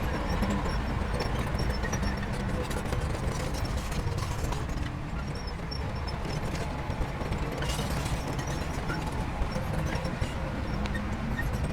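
Heavy diesel construction machinery running steadily with a deep low drone, scattered clanks and knocks over it.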